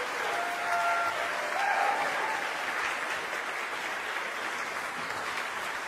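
Audience applauding after a song, with a few brief calls from the crowd in the first couple of seconds; the clapping eases off slightly toward the end.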